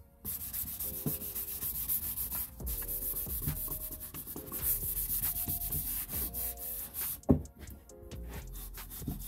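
A cloth rubbing Danish oil into the surface of an oak box in repeated wiping strokes, with one sharp knock about seven seconds in. Soft background music plays underneath.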